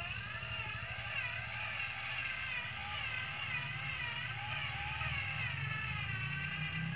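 Radio-controlled model truck running under load, a low engine-like drone as it crawls, with a wavering high melodic tune over it.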